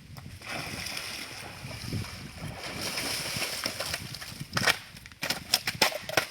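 Shallow river water sloshing and splashing, followed by a quick run of sharp splashes or knocks in the last second and a half.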